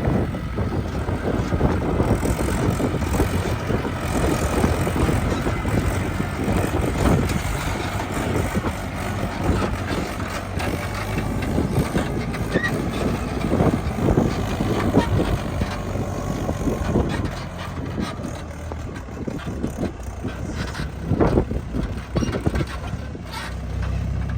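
Diesel engines of a backhoe loader and a tractor running steadily, with scattered knocks and clatters throughout.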